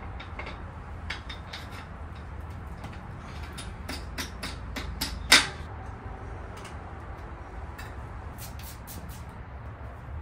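Scattered sharp clicks and knocks of tools and bike parts being handled on a mountain bike in a repair stand, with one louder clack about halfway through, over a low steady background rumble.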